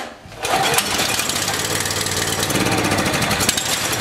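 Wacker G 5.6 generator's small gasoline engine pull-started on choke, catching about half a second in and then running steadily. The generator will still only run on choke, which the mechanic traces to an air leak back near the intake manifold.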